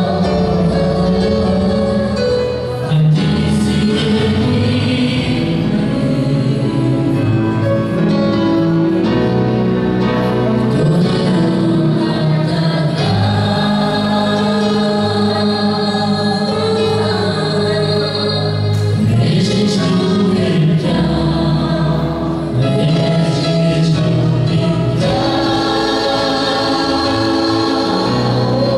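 Live gospel worship song: several voices singing together into microphones, with a woman singing lead, over keyboard and violin accompaniment.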